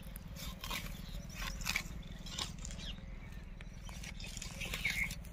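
Dry chickpea plants crackling and rustling as they are pulled up by hand and cut with a sickle, in scattered sharp snaps over a steady low rumble.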